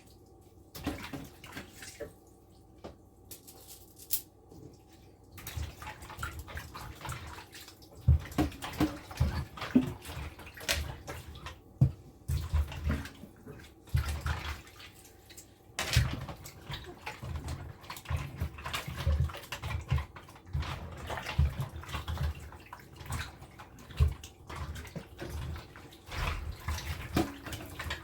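Cow foot being washed by hand in water: irregular splashing and sloshing with frequent knocks of the pieces against the container. It starts about five seconds in, after a few scattered clicks.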